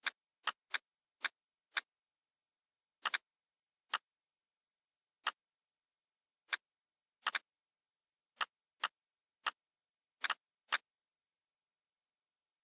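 Computer mouse clicks: about eighteen short, sharp clicks at uneven intervals, some in quick double-click pairs, with silence between them.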